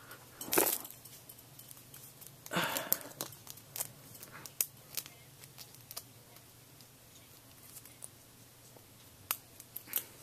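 Plastic fork pieces and orthodontic rubber bands being handled and fitted: a few short rustles, one about half a second in and a longer one near three seconds, and scattered light clicks.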